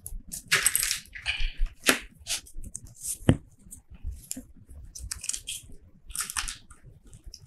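Scissors snipping thread, with paper rustling as a hand-sewn booklet is handled and a few sharp clicks of small objects on the table, the loudest about three seconds in.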